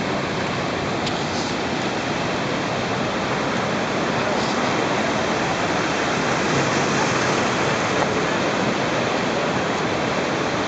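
Sea waves breaking as a steady rush of surf, swelling slightly in the middle.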